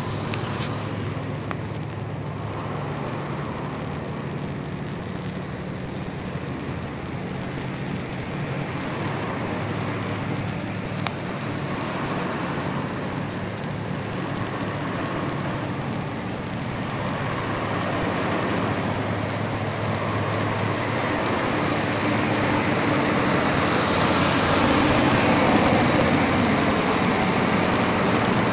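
Steady low machinery drone under a broad rushing noise, the rush growing louder over the last third.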